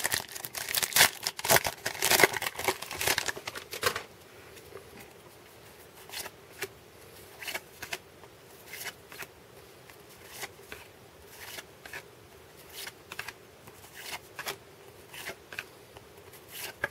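A baseball card pack wrapper torn open and crinkled for about four seconds, then the cards slid one behind another while being flipped through, a soft card-on-card swish every half second or so.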